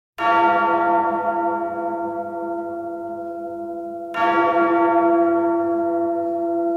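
A large bell tolling twice, about four seconds apart, each stroke ringing on and slowly dying away.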